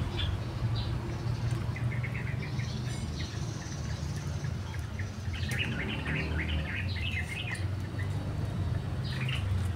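Small birds chirping in quick runs of short, high notes, one brief run about two seconds in and a longer one midway, over a steady low rumble.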